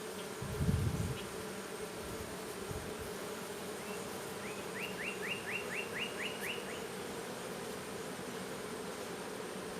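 Honeybees buzzing steadily around an opened hive, the hum of many bees at once. A brief low rumble comes about half a second in, and a quick run of about eight high chirps sounds a little past the middle.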